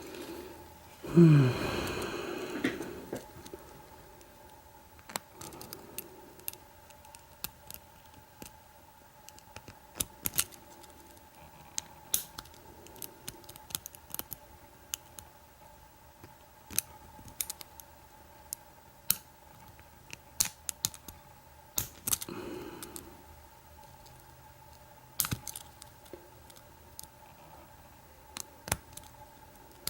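Lock pick and tension tool working in a Sesamee 936 padlock's pin-tumbler cylinder during single pin picking: scattered small metallic clicks and scrapes at an uneven pace. About a second in there is a louder brief sound that falls in pitch.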